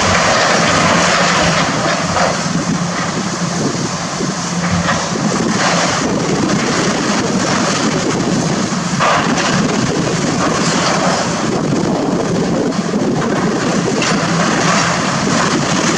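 Hydraulic excavator's diesel engine running steadily under load as it tears into a building, with brief crashes and scraping of falling demolition debris a few times.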